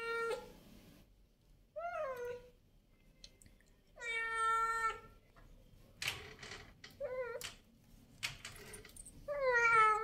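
A cat meowing again and again: five meows about two seconds apart, the one about four seconds in the longest at about a second, the last one falling in pitch.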